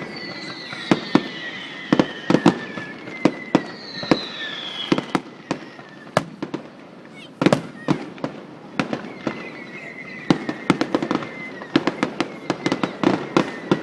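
Fireworks going off: a rapid, irregular string of sharp bangs and pops, with falling whistles of whistling fireworks three times over.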